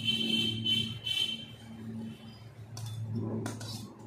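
Metal spoon scraping the inside of a wok in about three short strokes, each giving a ringing screech, followed by a few sharp clinks of metal on metal about three seconds in, as boiled taro is tipped out of the pan.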